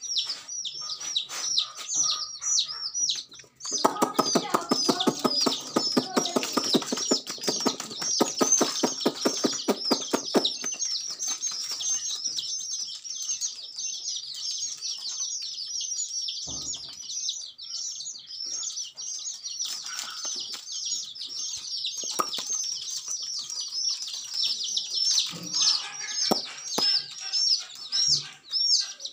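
A crowd of young domestic chicks peeping continuously: high, falling cheeps overlapping several times a second. From about four seconds in, a louder, lower rapid pulsing noise runs beneath them for about seven seconds.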